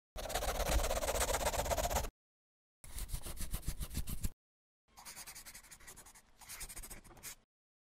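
Scratching sound effect of drawing and scribbling on paper, coming in three spells of rapid strokes, the last one quieter.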